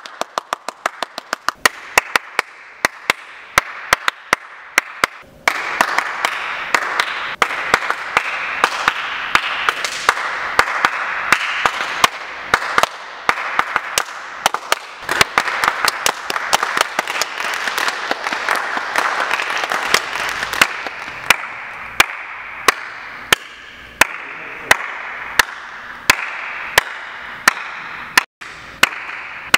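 Hand claps: a quick run of claps at first, then slower single claps at an even pace of about one and a half a second, with a steady hiss behind them through the middle.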